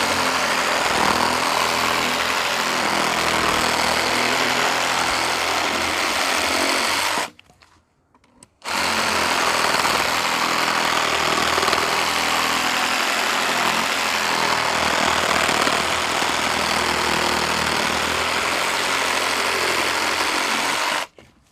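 Meterk 20V cordless reciprocating saw cutting through a log of old, fairly light cottonwood. It runs steadily in two long stretches with a break of about a second and a half near the middle.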